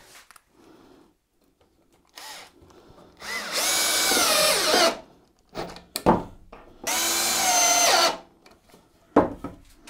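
Cordless drill-driver driving screws into spruce: two runs of about a second and a half each, the motor pitch sagging as each screw pulls in. A few short knocks of wood on the bench between and after the runs.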